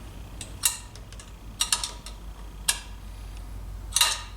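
A few separate sharp metallic clicks, irregularly spaced, from a hand tool working the clamp collar that holds a Gurtner carburettor on a Motobecane moped's intake pipe, over a low steady hum.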